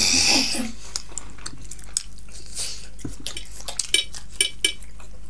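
Close-miked eating: a sausage being bitten and chewed, and a metal fork clinking against a plate several times, most of all near the end.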